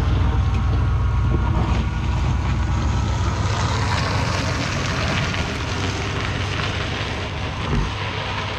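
Pickup truck engine pulling away while it tows a Volkswagen Beetle on a chain; the Beetle's seized wheel drags on the road with a rushing scrape as it passes. The whole sound fades as they move off, with a brief thump near the end.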